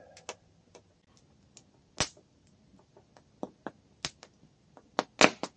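Wood campfire crackling: sharp pops and snaps at irregular intervals, with the loudest cluster near the end.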